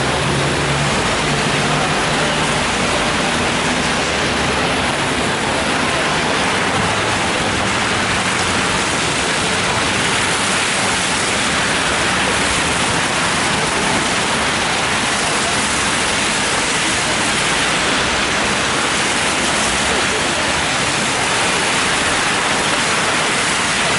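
Steady rain falling on an umbrella held just overhead, a continuous even hiss, mixed with the swish of car tyres on the wet road.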